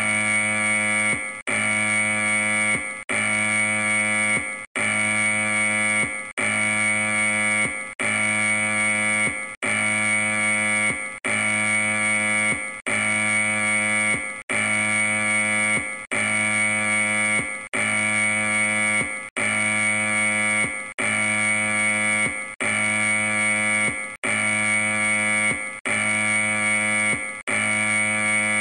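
Taiwan Central Weather Bureau strong-earthquake early-warning alert tone: an electronic alarm tone held for about a second and a half, then repeated after a short break, about every 1.7 seconds.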